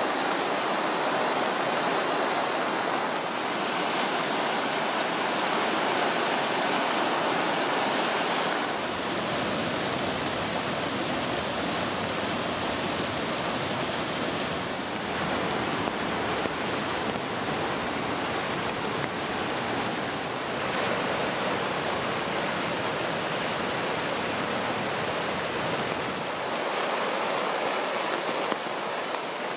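Rushing floodwater from the Middle Fork Snoqualmie River running near flood stage, heard across three clips that change about 9 and 26 seconds in. First a steady rushing of water, then a swollen stream running white over rocks, then river overflow pouring through flooded woods.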